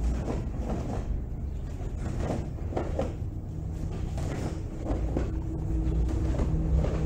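A karateka's footwork and strikes on a matted dojo floor during a three-technique combination, heard as faint scuffs and snaps over a steady low rumble, with a low hum joining about halfway through.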